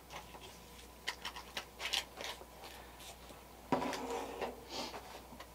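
Light clicks, taps and rustling of small objects handled on a workbench (a glitter jar and mixing cup), with one louder clatter about four seconds in.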